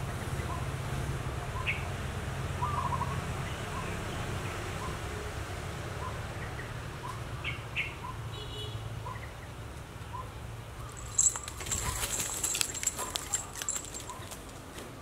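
A bird repeats a short chirp about once a second over a steady low hum. About eleven seconds in, the loudest part is a burst of rapid scratching clicks and jingling from a kitten's claws on bark and its collar bell as it scrambles up a tree trunk.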